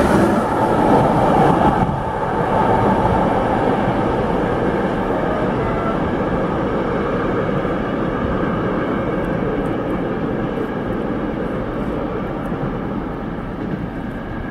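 Freight train of container wagons rolling over the rails, loudest in the first two seconds as the last wagons pass, then its rolling noise fading steadily as it draws away.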